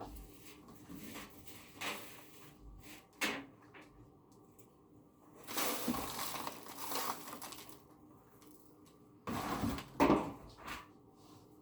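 Bird cage parts being handled: scattered knocks and clatter, with two longer scraping, rustling stretches, one about halfway through and one near the end.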